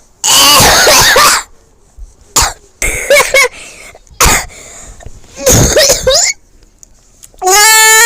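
A person's loud fits of wheezing laughter and coughing, in bursts about every second or two, ending in a long high-pitched squeal.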